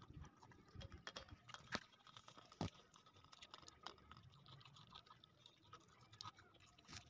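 Goat kid chewing and crunching watermelon pieces, a run of irregular wet crunches and clicks, with two sharper crunches about two and three seconds in.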